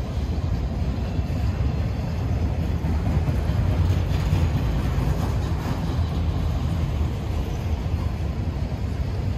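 Freight train cars rolling past: a steady low rumble of wheels on the rails.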